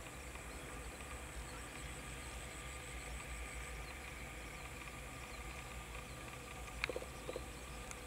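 Faint, steady outdoor background of a wetland, with a thin high buzz through the first half and two short clicks near the end. No bird call is heard; the wood sandpiper stands silent.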